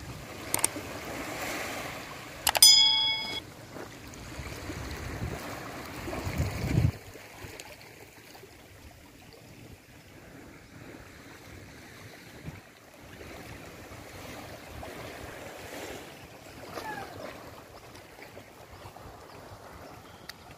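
Small waves lapping on a sandy beach, with wind buffeting the microphone for the first several seconds. About two and a half seconds in, a sharp click and a brief ringing chime sound, the sound effect of a subscribe-button animation.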